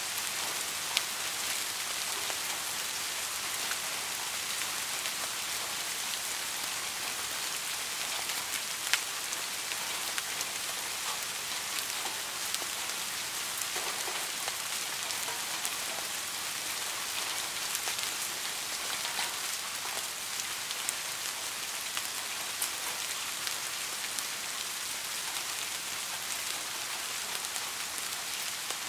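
Steady rain falling, an even hiss with sharp single drops ticking now and then, the loudest about nine seconds in.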